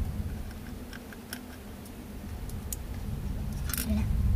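Hands working on an opened laptop's plastic case and parts: scattered light clicks, with a short scraping rattle near the end.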